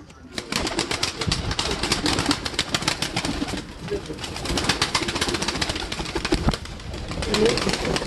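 Pigeons cooing a few times over a dense, continuous run of sharp clicks and rustling.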